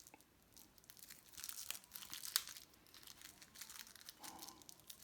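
Faint crinkling and tearing of the sticky rubber pad's packaging as it is handled, a run of small crackles with one sharper crackle about two and a half seconds in.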